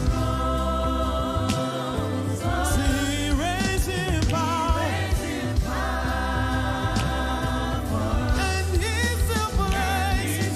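Gospel worship music: singers and a choir singing over a live band, with a steady bass line and drum hits.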